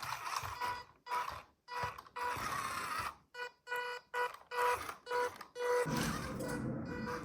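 Background music made of short, rhythmic, beep-like electronic notes, becoming fuller and continuous with a low layer from about six seconds in.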